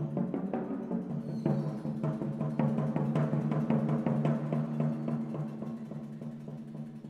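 Percussion ensemble playing: a quick run of drum and mallet strikes over low, sustained ringing pitches, dying away near the end.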